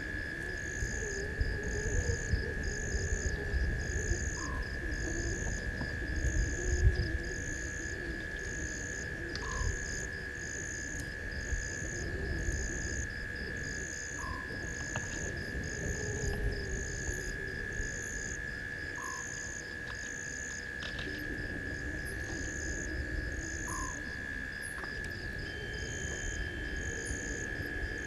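Night chorus of frogs and insects at a waterhole: a steady high trill, a high pulsing call about once a second, and a short rising note repeated about every five seconds. Low rumbling noise underneath is loudest in the first several seconds, with a knock about seven seconds in.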